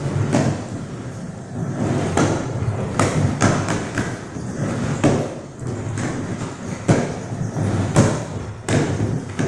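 Skateboard wheels rolling over plywood ramps with a continuous low rumble, broken every second or so by sharp clacks and thuds of the board and feet hitting the wood, the loudest two near the end.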